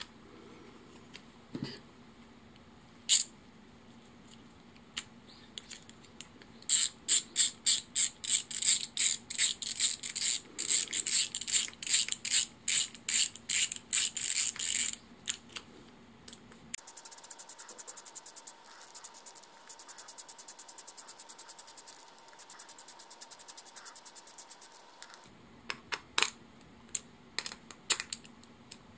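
Screwdriver driving small screws into a 3D-printed plastic housing, mostly as runs of sharp ratchet-like clicks at about four a second. Midway there is a stretch of faster, thinner ticking with a faint steady tone. A few separate clicks of parts being handled come near the start.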